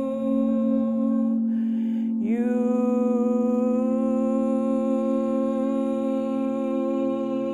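Meditative music: a voice hums long held notes over a steady drone. It takes a breath about a second and a half in, and the next note slides up into place and is held.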